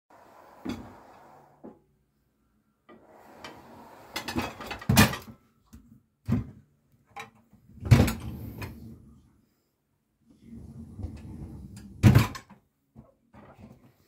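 Stainless steel pots and lids clattering and scraping in a dishwasher's lower rack as they and the rack are handled, with several sharp metal clanks among stretches of rattling and sliding.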